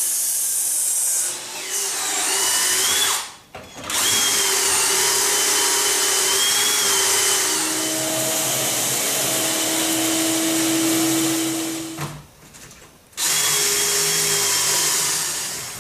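Cordless drill running at speed, boring pocket holes in wood through a pocket-hole jig, with a shop vacuum running on the jig's dust hose. The steady whine stops briefly twice, a little after three seconds and about twelve seconds in.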